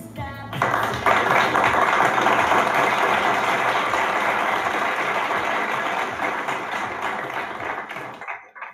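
Applause from a crowd, played as a sound effect: steady dense clapping that starts about half a second in, swells a moment later and fades out near the end.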